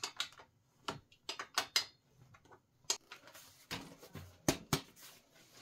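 Irregular light metal clicks and clinks of a wrench working the seat clamp bolt as a saddle is fitted to a bicycle seat post.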